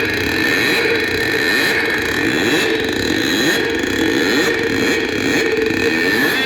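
Loud DJ sound system playing a steady, droning electronic sound effect with several held tones, one low and others high, over a dense rushing noise.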